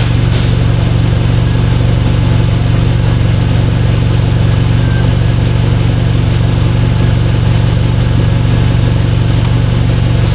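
Turbocharged Honda R18 four-cylinder engine idling steadily, with no revving.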